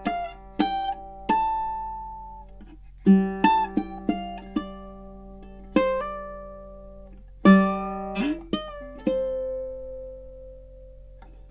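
Tenor ukulele with sabicu back and sides and a redwood top, played solo in a slow improvisation: picked notes and strummed chords, each left to ring out. About nine seconds in, a single note rings on and dies away.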